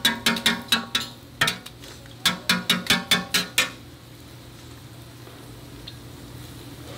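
Quick runs of sharp metal utensil strikes, about five a second, clattering against cookware. They stop about three and a half seconds in, leaving a steady low hiss.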